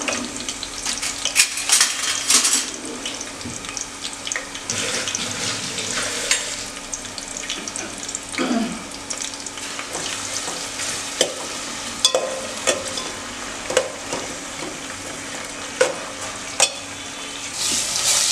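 Sliced onions frying in hot oil in an aluminium pot, sizzling steadily, with a spoon stirring them and clinking sharply against the pot every second or so. A faint steady hum runs underneath.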